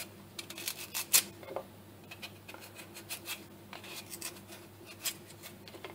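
Small knife paring the skin off a raw sweet potato: faint, irregular scraping clicks of the blade through the peel, the loudest about a second in.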